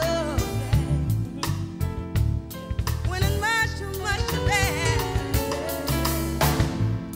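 Live soul ballad: a woman's lead vocal singing drawn-out, wavering phrases with vibrato over a band with bass and drum kit.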